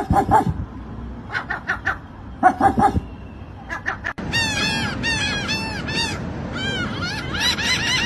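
Seagulls calling: a few scattered calls, then from about four seconds in a rapid run of repeated yelping calls.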